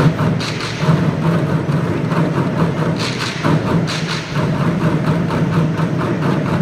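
A steady rhythmic beat of percussion, about four strokes a second, over a continuous low tone.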